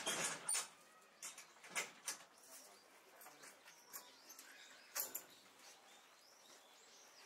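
Southern tamandua's claws scraping and tapping on wooden planks as it climbs down from a platform: a louder rustling scrape at the start, then a few short, scattered scratches and knocks.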